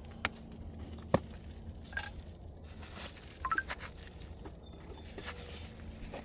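Light handling noises as a new UV bulb is taken out of its packaging: scattered small clicks and rustles, with one sharp click about a second in.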